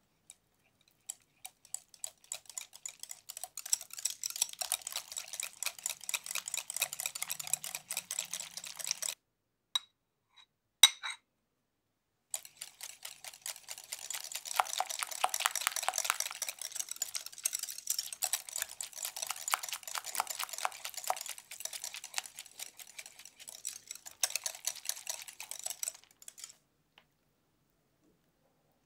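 Small wire whisk clicking and rattling rapidly against a glass bowl as it stirs a thin liquid filling, in two long spells. In the short break between them comes a sharp clink or two.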